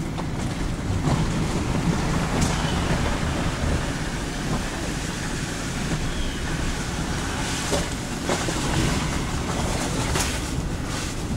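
Car driving slowly, heard from inside the cabin: a steady low engine and road rumble, with a few brief sharp crackles along the way.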